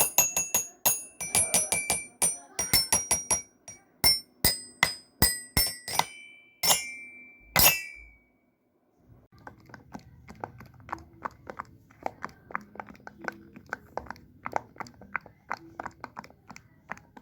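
Chiming mallet-percussion music of quick struck notes, ending on a longer ringing note about eight seconds in. After a second of silence comes a run of quieter, rapid light clicks and taps over a low hum.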